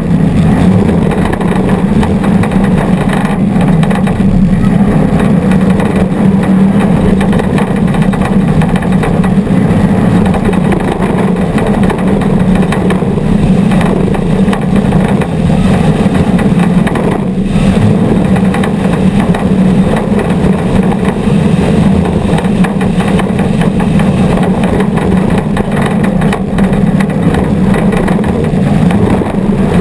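Off-road race vehicle's engine running hard at a steady high speed, loud and close as heard by an onboard camera.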